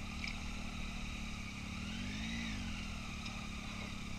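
Triumph Tiger 800 XCa's three-cylinder engine running as the bike rides off-road. The revs rise and fall back once about two seconds in.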